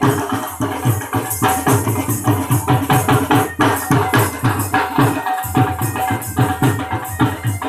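Live wedding dance music on dhol drums, beaten in a fast, even rhythm, with a steady held note above the drumming.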